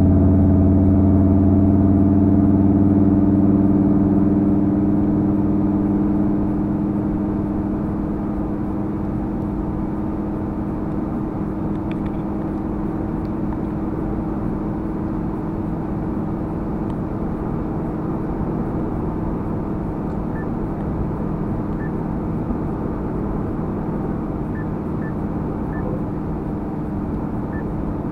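Steady drone of a car cruising on a motorway, heard from inside the cabin: tyre and road noise with a low engine hum. The hum is louder for the first few seconds, then eases off and leaves an even road drone.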